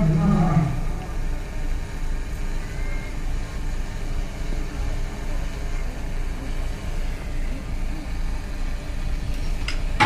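Outdoor crowd ambience at a shipyard slipway over a steady low rumble. A deep pitched tone dies away in the first second, and a short sharp knock comes near the end.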